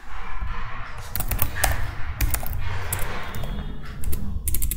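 Typing on a computer keyboard: scattered keystrokes, with a quick run of several keys near the end.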